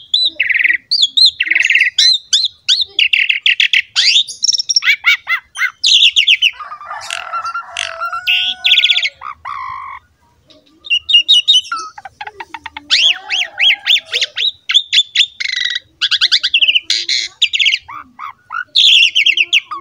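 Asian pied starling (jalak suren) singing a loud, varied song: rapid rattling trills and whistles mixed with harsh chattering, with a pause of about a second midway.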